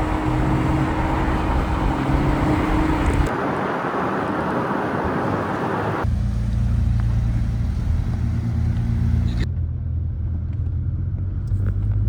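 Sports car on the move: a loud rush of road and wind noise, then, about halfway through, the engine running steadily at low revs with a deep hum. The sound changes abruptly several times.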